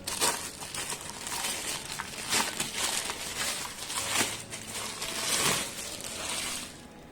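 Packaging crinkling and rustling as a miniature mixer grinder is unwrapped and handled by hand, with a few light clicks. The rustling dies away shortly before the end.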